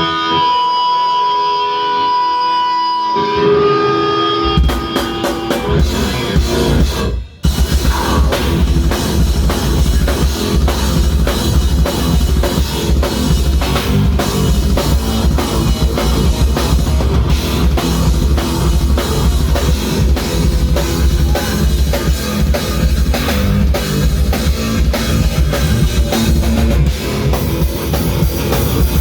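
Rock song: held guitar notes open it, bass comes in after about four seconds, and after a short break about seven seconds in the full band plays with drums, bass and guitar.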